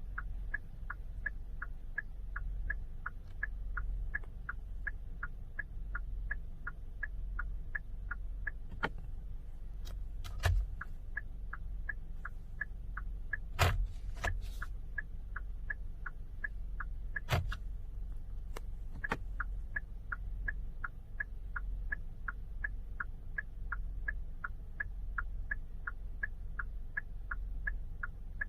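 Turn-signal indicator of a 2021 Hyundai Tucson ticking steadily at about three clicks a second, over a low steady hum, with a few louder sharp clicks about ten, fourteen and seventeen seconds in.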